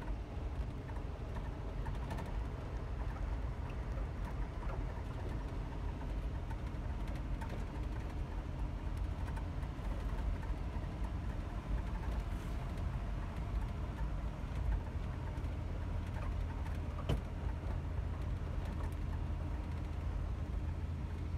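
Tour jeep driving uphill, heard from inside the cabin: a steady low rumble of engine and tyres, with occasional light knocks.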